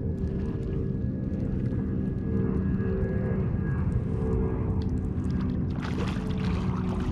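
Steady low rumble of a kayak moving through open water, with a faint steady hum over it. About six seconds in there is a short splash at the surface behind the kayak, where a fish is thrashing on a bent trolling rod.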